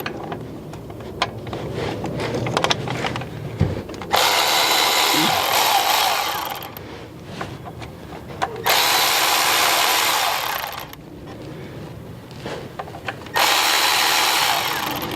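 Power tool spinning a 10 mm bolt out on the power steering pump, in three runs of about two seconds each, with small clicks of the tool and parts between them.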